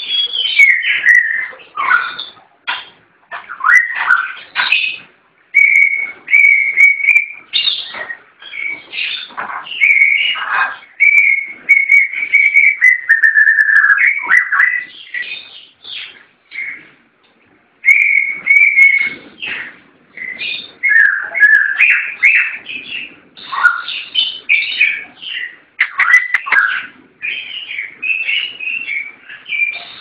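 Caged songbird singing a long, varied song of whistled notes, some held steady and others sweeping up and down, with a break of about two seconds near the middle.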